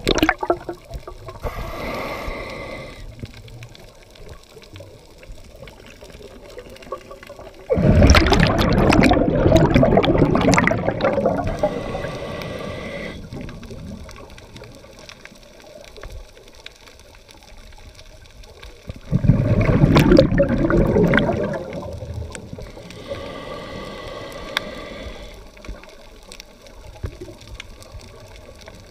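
Scuba diver's regulator breathing heard underwater: two loud rushes of exhaled bubbles, each about three seconds long and about eleven seconds apart, with quieter hisses of inhalation between them.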